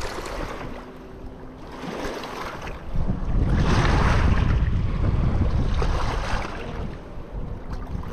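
Small waves washing and splashing against a rocky shoreline, with wind buffeting the microphone. Both are loudest from about three seconds in until about six seconds.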